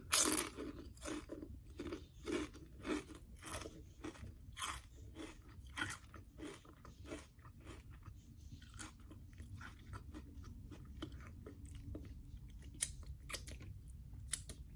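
A person chewing food with mouth-noise crunches, a run of short irregular crackly crunches that comes thicker in the first half and thins out later.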